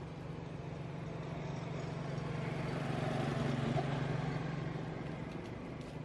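A motor vehicle passing: a steady low engine hum whose noise swells to its loudest about halfway through, then fades.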